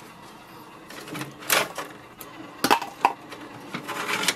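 Plastic paper tray of an HP OfficeJet 8015 printer being adjusted by hand: its paper guides slide in a few short bursts and snap with a couple of sharp clicks.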